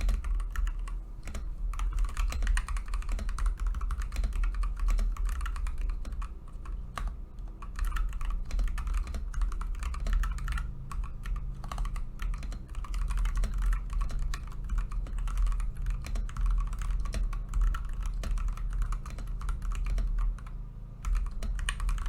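Continuous fast typing on a Higround Epic mechanical keyboard with its stock switches: a dense, irregular stream of key clicks with a few short pauses.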